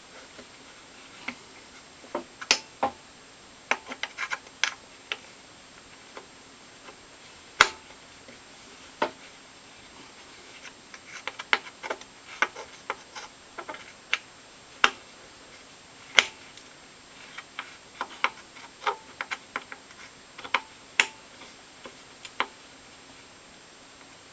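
Irregular clicks and light knocks of hand tools and metal parts on a table saw being adjusted and bolted into alignment, with a few sharper knocks among them.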